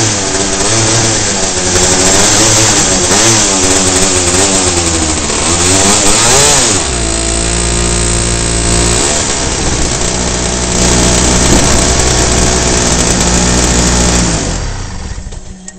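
Two-stroke reed-valve superkart engine running with revs wavering up and down, then dropping about seven seconds in to a lower, steady speed, and fading out near the end. The owner suspects a bad reed valve, which gives popping and spitting when coming back onto the throttle.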